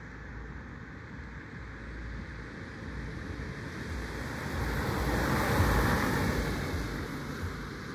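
A car approaching and passing close by on the road, its tyre and engine noise swelling to a peak about five and a half seconds in, then fading as it drives away.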